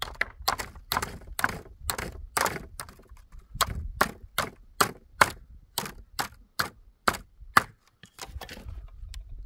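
Rapid series of sharp blows of a tool striking wood, about two to three a second, stopping about seven and a half seconds in.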